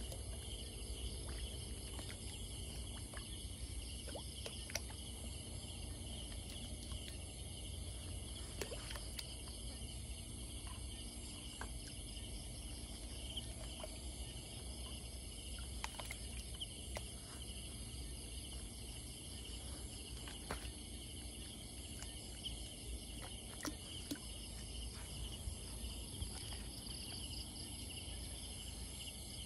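Steady night chorus of crickets and other insects, several unbroken high-pitched trills layered together. Faint scattered clicks and small splashes come from a net being handled in shallow water.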